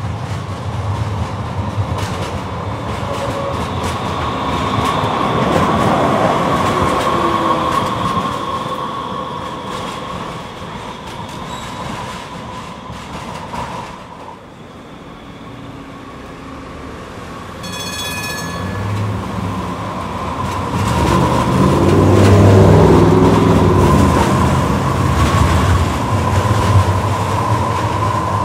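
Breda light rail vehicles running on street track, one pass and then another, each rising and falling in loudness as it goes by, with wheel-on-rail noise and a steady high whine. A brief high-pitched tone sounds about two thirds of the way through.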